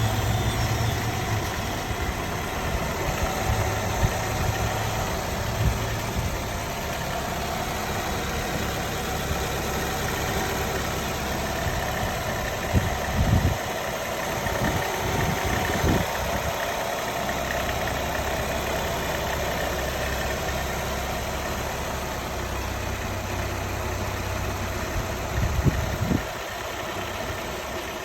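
A 2015 Nissan Altima 2.5's four-cylinder engine running steadily, with a rattle and a whine that the owner cannot identify. A few louder knocks come through about thirteen seconds in and again near the end.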